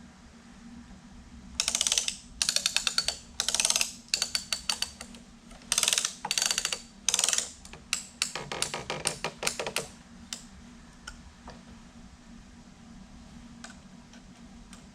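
Rapid clicking of a ratchet strap being cranked tight around a stack of slabs, in a run of quick bursts that stops about ten seconds in.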